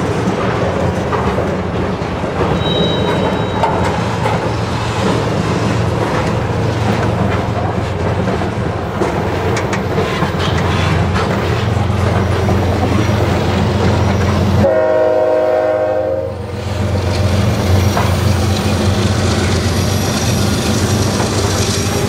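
Freight cars rolling past with a steady rumble and wheels clacking over rail joints. About fifteen seconds in, a locomotive's Nathan K5HL five-chime air horn sounds one chord for about two seconds.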